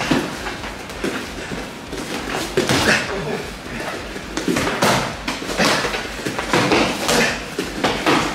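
Boxing gloves striking in sparring: a string of irregular punches, about a dozen sharp thuds landing on gloves and body.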